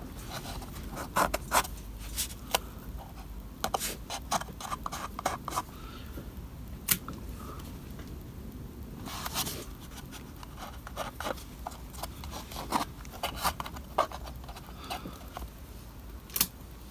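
Masking tape being pulled off the roll, torn and pressed onto a card model roof, with scattered small clicks and scrapes from fingers handling the card. There is a longer rasp about nine seconds in.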